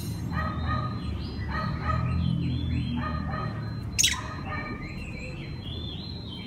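Oriental magpie-robin singing: a run of short repeated notes, then a single sharp, loud note falling steeply in pitch about four seconds in, followed by short higher whistled notes.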